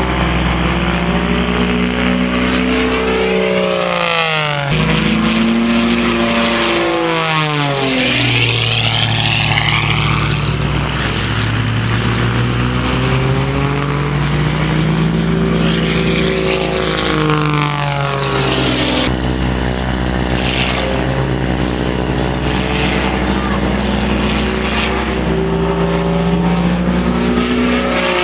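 Edge 540 aerobatic plane's six-cylinder Lycoming engine and propeller at full power through an aerobatic display. The pitch swoops sharply down about four and eight seconds in and again around seventeen seconds in, climbing back between, as the plane dives, pulls up and passes by.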